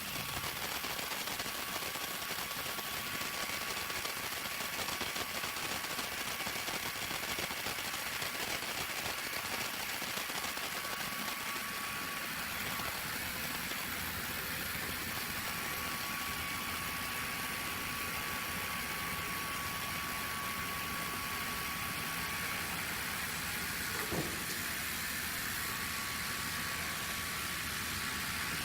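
Machinery running steadily: an even mechanical noise with a thin high whine, and one short sound about 24 seconds in.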